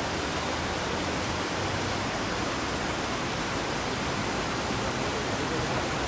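Steady, even rush of water from a cascade fountain.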